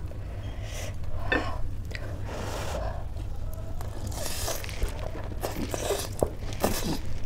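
Close-up eating sounds of a person slurping and chewing Maggi instant noodles: several short wet slurps with small mouth clicks, over a low steady hum.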